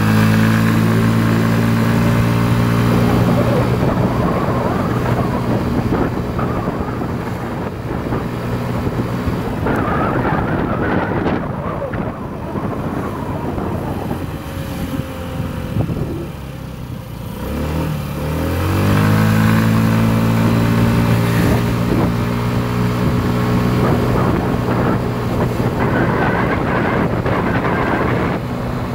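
Motorcycle engine under way: it rises in pitch as the bike accelerates at the start and holds steady, drops as the bike slows about fifteen seconds in, then climbs again as it pulls away and holds.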